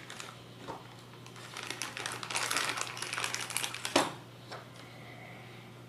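Tiny machine screws and small plastic parts clicking and rattling as they are picked out by hand, a quick run of light clicks, then one sharp click about four seconds in.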